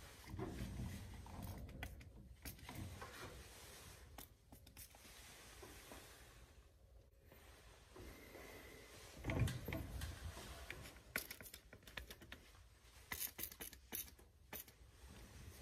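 Trigger spray bottle squirting soapy water onto gas-line fittings for a leak test, with several quick squirts near the end. Faint rubbing and handling noises run between them, and a dull bump just past the middle is the loudest sound.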